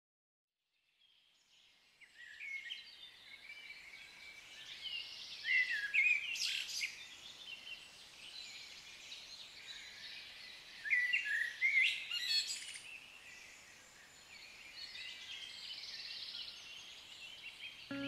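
Songbirds chirping and singing, several calls overlapping, fading in after about a second of silence. The song swells twice, about a third of the way in and again about two-thirds of the way in.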